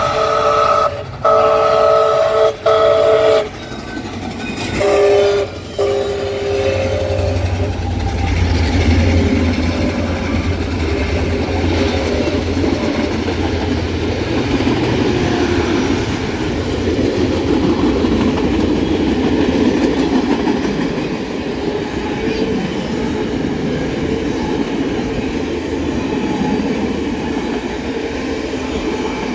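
Canadian Pacific 2816, a Hudson steam locomotive, sounds its steam whistle in a series of several-note blasts for the grade crossing, over about the first seven seconds. It then rumbles past, and its passenger cars follow, rolling by with steady wheel noise on the rails.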